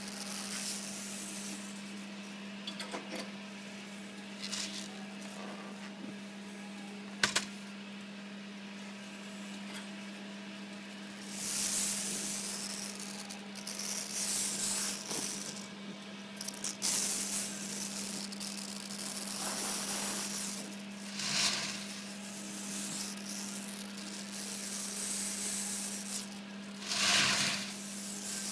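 Handheld gas torch flame hissing as it is passed along the edges of acrylic shelves to flame-polish them, over a steady low hum, with the hiss swelling louder several times. A single sharp click about seven seconds in.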